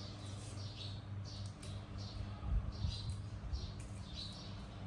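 Faint, short high-pitched chirps from a small animal, repeating about twice a second over a steady low hum, with a couple of soft low thumps about halfway through.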